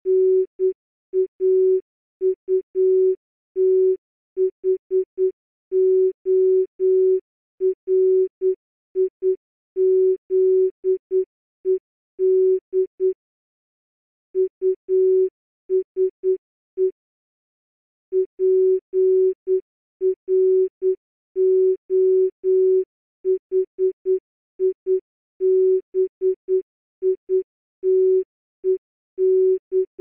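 Morse code sent as a single steady low tone, keyed on and off in short dots and longer dashes, played at half speed. The keying stops twice for about a second, as between words.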